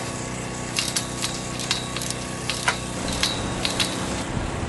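Irregular sharp metallic clinks, each with a short ring, as steel greenhouse tubing and clamp fittings knock together while being fitted by hand. Under them runs a steady engine hum.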